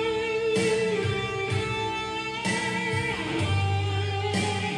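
Godin Redline HB electric guitar played through an amplifier: a run of ringing chords and single notes, each new one struck about every half second to second, with deeper low notes sustained in the second half.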